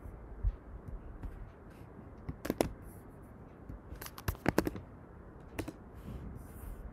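Computer keyboard keystrokes and mouse clicks. A few sharp clicks are scattered through, with a pair about two and a half seconds in and a quick run of several around four and a half seconds, over a low background hum.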